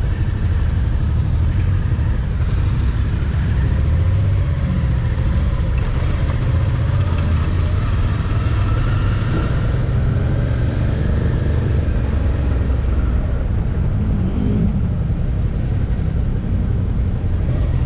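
Motorcycle moving slowly through stopped traffic, picked up from the rider's seat: a steady low engine and road rumble with no change in pace.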